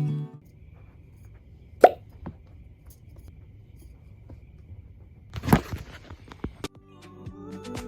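Quiet household handling sounds: one sharp squeak-like knock, then a few seconds later a brief hiss followed by several light clicks. Guitar music cuts out at the start and fades back in near the end.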